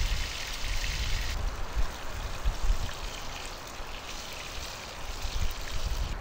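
Bacon and steak sizzling in a nonstick frying pan on campfire coals: a steady hiss that softens a little after about a second, with a low, uneven rumble underneath.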